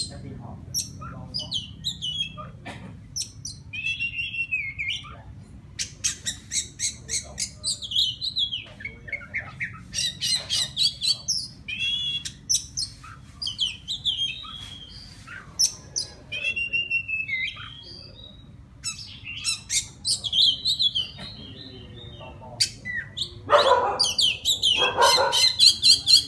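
Male oriental magpie-robin singing to call a female: a run of short, varied whistled phrases with notes sliding up and down, broken by sharp clicks. Near the end comes a louder, harsher call.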